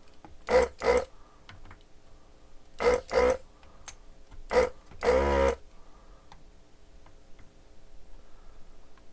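Desoldering gun's vacuum pump triggered in short bursts, sucking molten solder off component legs: six brief buzzes, mostly in pairs, the last one longer, about five seconds in. A faint steady hum runs underneath.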